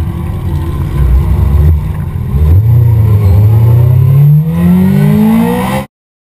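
Car engine accelerating hard, heard from inside the car, its pitch climbing steadily as it revs up, with a brief dip about four and a half seconds in. The sound cuts off abruptly near the end.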